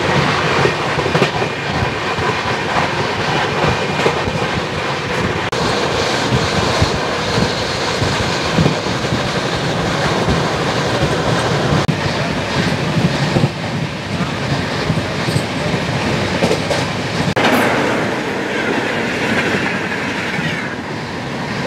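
Passenger train running at speed, heard from an open coach doorway: a steady rush of wheel, rail and wind noise, with the wheels clattering over rail joints. Near the end another passenger train goes past on the next track.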